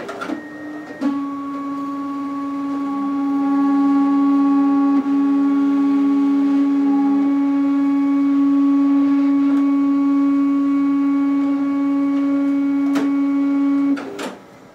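Zebra ZXP Series 8 card printer running its heated-roller cleaning cycle, its feed motors drawing the adhesive cleaning card in through the front slot and sending it back out. A brief high beep at the start, then a steady pitched motor whine with a second, lower tone for a few seconds and a single click about a third of the way in; the whine stops with clicks near the end.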